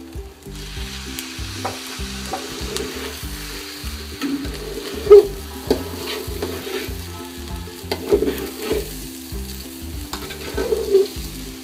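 A steel spoon stirring and scraping rice, lentils and green peas through hot oil in a metal pot, with a light sizzle as the rice dry-fries (the bhuna stage before water goes in). The spoon knocks against the pot now and then, sharpest about five seconds in.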